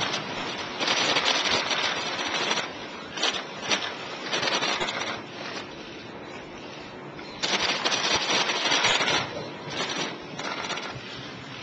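Press photographers' camera shutters clicking rapidly, many cameras at once. The clicks come in dense bursts, the biggest about a second in, around four seconds and from about seven and a half seconds in, with sparser clicks between.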